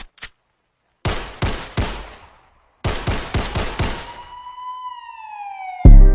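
Gunshot sound effects opening a hip-hop track: three single shots, then a quicker volley of about six, followed by a pitched siren-like tone that sweeps downward. About a second before the end, a heavy deep bass hit of the beat comes in.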